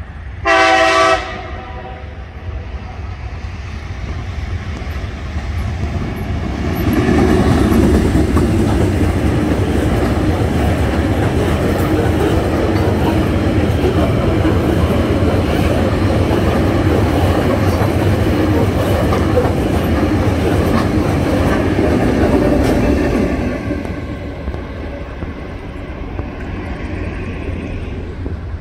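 Diesel locomotive horn sounds one short blast about half a second in. From about six seconds in, a long rake of loaded bulk cement hopper wagons passes close by for some seventeen seconds, steel wheels rumbling and clicking over the rail joints, and then the noise drops away.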